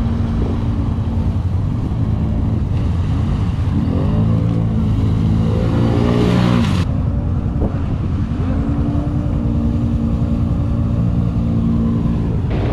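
Quad bike (ATV) engine running under way, revving up and easing off several times: the pitch climbs about four seconds in, drops back near seven seconds, then rises again and holds steady. A rushing hiss rides along with it during the first revs.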